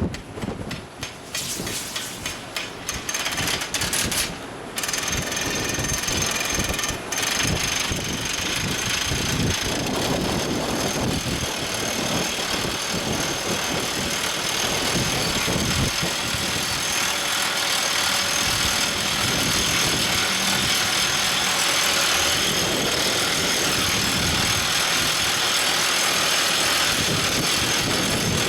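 Everdigm ECD45E top hammer drill rig running: uneven machine noise for the first few seconds, then a steady, loud engine-and-machinery noise with faint high whining tones.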